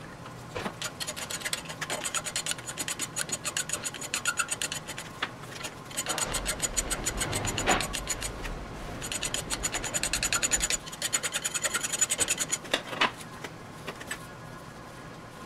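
Hand file rasping on the welded steel eye ring of an auger bit held in a vise, in quick repeated strokes that smooth the weld. A denser, steadier scraping runs for a few seconds near the middle, and the strokes stop shortly before the end.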